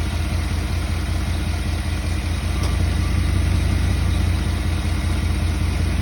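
Chevrolet Silverado's engine idling steadily while its freshly rebuilt 4L60E automatic transmission is being filled with fluid.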